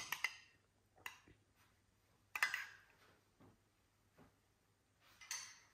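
A metal utensil ticking faintly against a coffee mug while raw eggs are whisked in it: scattered light clicks, with two brief louder scuffs about two and a half seconds in and near the end.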